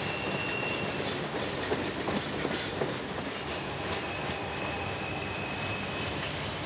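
Long freight train rolling past, steel wheels on rail with occasional clicks. A faint thin, high wheel squeal is heard near the start and again through the second half.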